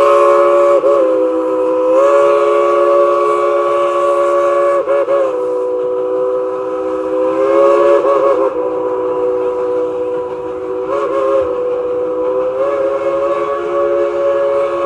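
Steam chime whistle of Baldwin 2-8-2 narrow-gauge locomotive No. 190 held in one long blast, sounding a chord of several notes. Its pitch sags and swells back briefly about four times as the whistle valve is worked.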